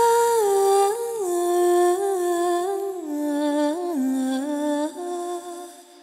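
A male singer's wordless vocal line sung solo into a microphone, with no accompaniment: held notes that slide down step by step from a high start, fading out about five seconds in.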